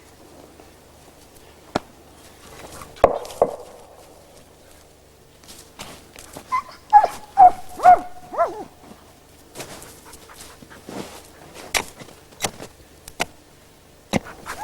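A hunting dog gives a quick run of about five short, falling yelping barks about seven seconds in. Sharp snaps or knocks are scattered before and after.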